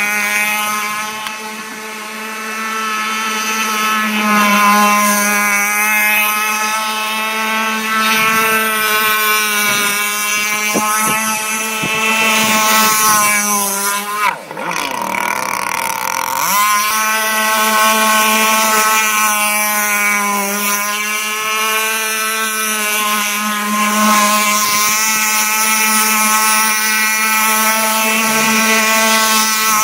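Small 26cc Zenoah two-stroke petrol engine with a tuned pipe driving an RC jet boat at speed, its note rising and falling as the throttle changes. About 14 seconds in the sound dips briefly, then swoops down and back up in pitch.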